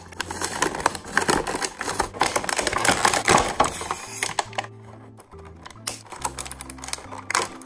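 Stiff clear plastic blister packaging crinkling and crackling as a toy box is opened by hand, dense for the first four seconds and then sparser, over light background music.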